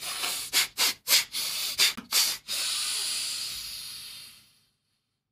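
A man sniffing the air through his nose: a quick run of short sniffs, then one long drawn-out sniff that fades away.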